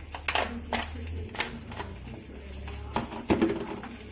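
Cooked mud crab's shell cracking and snapping as it is prised apart by hand: a run of sharp cracks, the loudest near the end, over a steady low hum.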